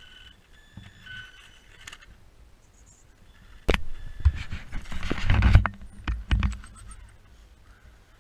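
Radio-controlled scale crawler: a faint, steady electric motor whine for the first couple of seconds, then a sharp knock and about three seconds of irregular clattering, scraping and thuds as the truck's body and tyres knock against the ground right beside the camera.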